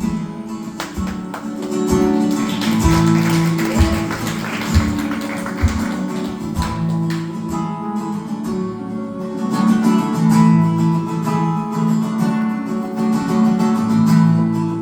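Live acoustic guitar playing a song's instrumental introduction, picked and strummed, with several low thumps in the first half.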